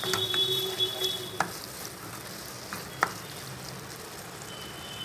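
A spatula stirring and scraping thick chicken and capsicum masala around a kadai over a low sizzle, with two sharp knocks of the spatula against the pan.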